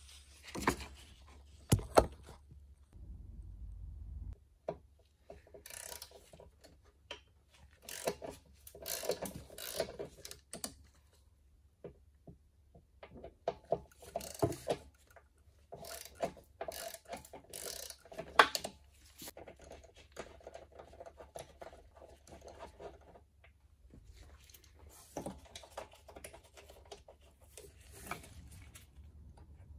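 Hand work with tools and metal parts: scattered clinks and knocks with rubbing and rustling between them, over a low steady hum. The sharpest knocks come about two seconds in and about eighteen seconds in.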